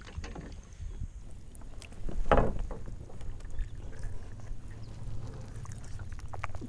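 Water lapping and handling noises at the side of a plastic fishing kayak, over a steady low rumble of wind on the microphone. A louder splash-like noise comes about two seconds in.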